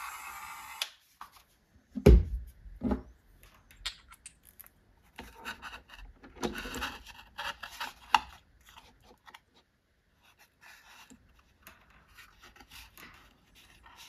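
A handheld rotary tool spinning down and stopping within the first second, then a loud knock about two seconds in and another just before three seconds, followed by scattered light clicks, scrapes and rustling of cardboard as small metal gears and a pulley are handled and set in place.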